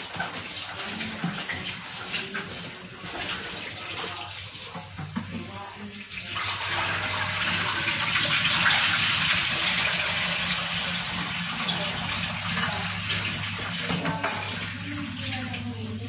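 Water running from a kitchen tap into the sink, splashing against a bowl; the flow is louder from about six seconds in until about fourteen seconds, over a faint low steady hum.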